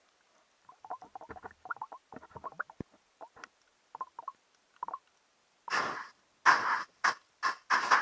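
Underwater sound picked up by a GoPro in its waterproof housing: faint crackling and gurgling water at first. From a little past halfway comes a series of loud, short bursts of water and bubbles rushing against the housing.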